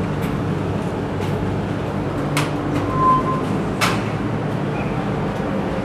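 Steady low mechanical hum, with two sharp clicks and a short high beep between them about three seconds in.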